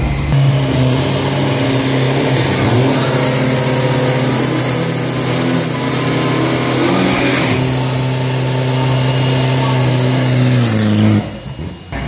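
Isuzu D-Max drag pickup's engine held at high, steady revs during a burnout, rear tyres spinning and smoking, then the revs drop sharply near the end.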